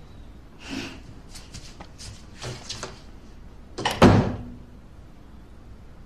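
A few soft, short scuffs and rustles, then a door shutting with a thud about four seconds in.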